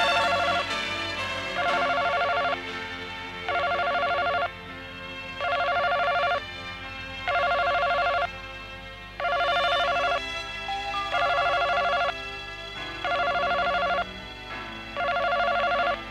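A telephone ringing over and over, each ring about a second long and coming about every two seconds, with soft background music underneath.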